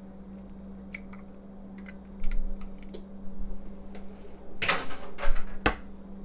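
Eggshells tapped and cracked against the rim of a stainless steel mixing bowl: a series of sharp clicks and cracks, the loudest near the end, over a steady low hum.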